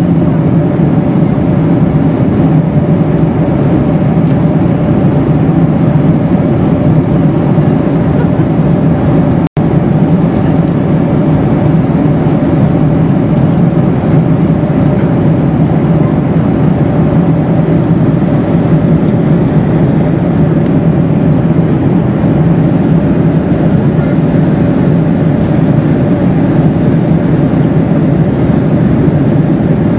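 Steady cabin noise of a Boeing 747-400 in flight: the drone of its GE turbofan engines and the rush of air past the fuselage, a constant low hum with no change in pitch. The sound cuts out for an instant about ten seconds in.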